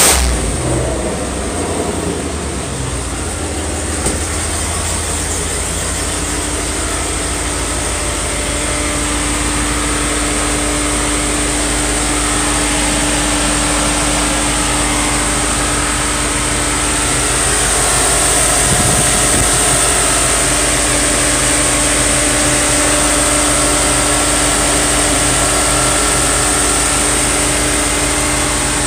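Jeep Grand Cherokee Trackhawk's supercharged 6.2-litre V8 idling steadily, heard up close in the open engine bay, with a steady high whine over the engine note.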